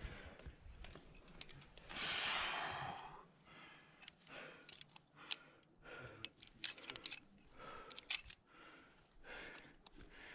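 A climber breathing hard, with a long forceful exhale about two seconds in, and several sharp clicks of carabiner gates as a quickdraw is clipped to a ring bolt.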